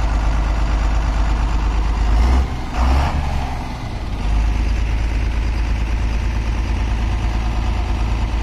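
Truck's diesel engine running steadily on the move. About two and a half seconds in there is a short knock, and the engine drone dips for over a second before it picks up again.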